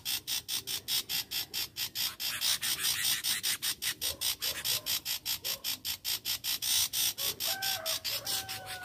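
A loud, rapid pulsing buzz, about five pulses a second, runs throughout. Short whistled notes of red-vented bulbuls come in near the end.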